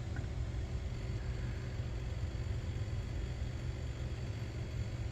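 Steady low background rumble with a faint even hiss, without any distinct knocks or clicks.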